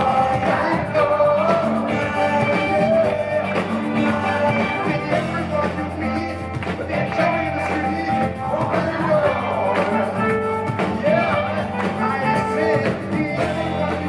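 Live band playing a rock song with electric guitar, bass and drums, and a lead vocal over the top.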